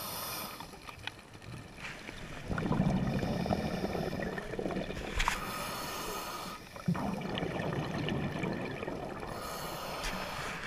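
Scuba diver breathing through a regulator underwater: a hiss of inhaled air through the demand valve alternates with the louder bubbling rumble of exhaled air, about two full breaths.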